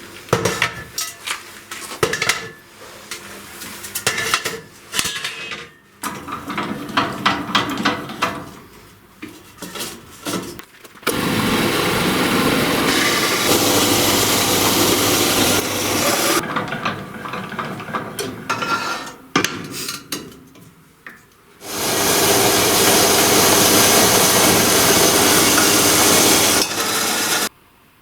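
Metalworking tools at work: a string of knocks and clatters of metal parts being handled and struck, then a power tool running steadily for several seconds. After more knocking, the power tool runs again and cuts off suddenly near the end.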